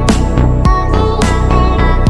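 Background music with a steady beat, about two beats a second, over held instrumental tones.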